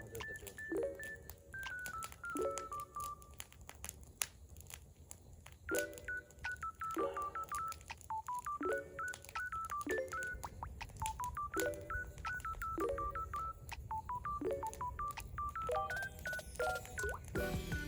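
Background music: a simple electronic tune of plain beep-like notes stepping down in pitch in short phrases over repeated short chords, with scattered sharp clicks.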